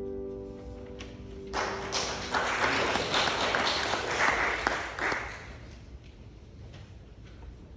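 The last held note of a song with piano ends, then a congregation applauds for about four seconds, the clapping dying away.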